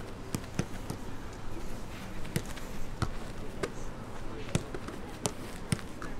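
Footballs being struck during training: a string of sharp thuds at irregular intervals, about nine in all.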